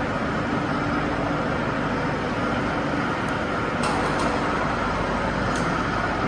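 Factory production machinery running with a steady, even hum and several held tones, with a few light clicks about halfway through.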